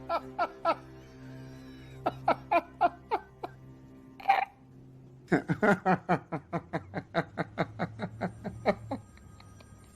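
Laughter in rhythmic 'ha-ha' bursts, about three to four a second, over background music, with a short noisy burst about four seconds in.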